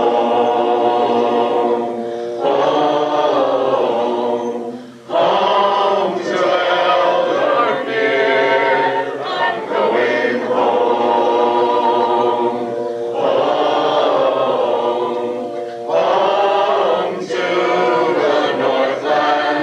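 A choir singing a cappella in harmony, in held phrases a few seconds long with short breaks between them.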